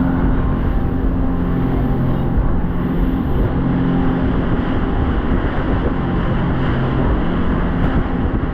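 A motorboat's engine running steadily under way, with the rush of water and wind around the hull.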